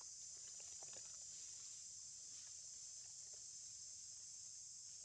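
Faint, steady, high-pitched chorus of insects buzzing in the forest, with a few faint short ticks, mostly in the first second.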